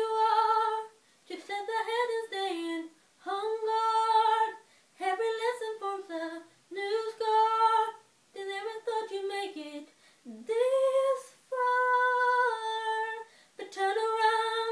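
A woman singing unaccompanied, in a string of short held phrases with brief breaths between them.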